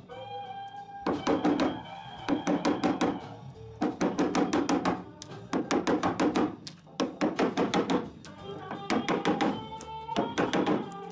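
Rapid hammer blows on a car door's sheet metal, six to eight a second in runs of about a second with short pauses between, as the outer door skin is worked loose.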